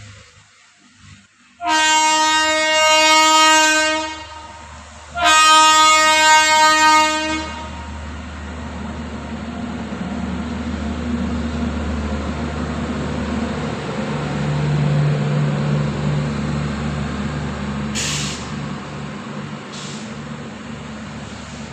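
Indian Railways WAP-7 electric locomotive sounding two long horn blasts, then the steady rumble of the locomotive and its passenger coaches rolling past.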